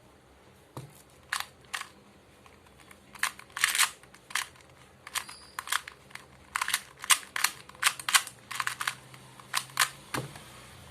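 2x2 Rubik's cube being turned fast in a speedsolve: an irregular run of sharp plastic clicks and clacks as the layers snap round, some in quick flurries.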